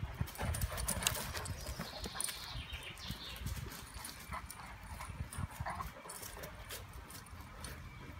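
Two dogs, a Broholmer and a Rhodesian Ridgeback, play-wrestling on grass: scuffling paws and many short thumps and knocks.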